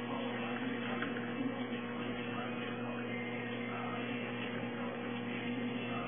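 Steady electrical hum with an even background hiss.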